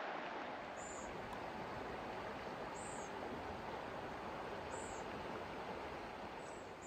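Steady rush of flowing river water, with a high, thin bird call repeated about every two seconds.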